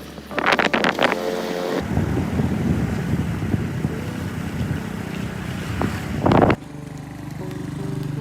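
Outdoor wind noise buffeting the microphone over a steady rumble, after a few short knocks or rustles in the first second. About six and a half seconds in it cuts off abruptly and music with sustained held notes begins.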